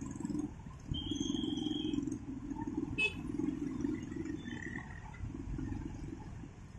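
Motorcycle and car engines running as road traffic crosses the railway tracks, a low fluctuating rumble. A steady high beep lasts about a second, starting about a second in, and there is a sharp click about three seconds in.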